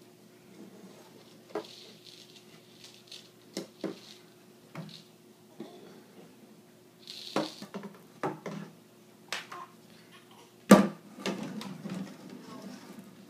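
Irregular light taps and knocks, one every second or so, with one sharper, louder knock near the end.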